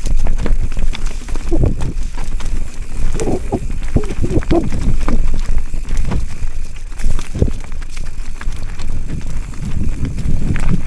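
Giant Trance full-suspension mountain bike riding down a rough enduro trail: a steady rumble and rattle of tyres, chain and suspension over roots and rocks, with many sharp knocks.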